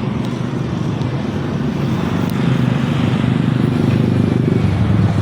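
Motorcycle engine running steadily, a little louder in the second half.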